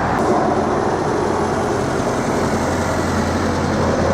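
Road traffic with a large vehicle's engine running close by, a steady low hum over the wash of passing cars.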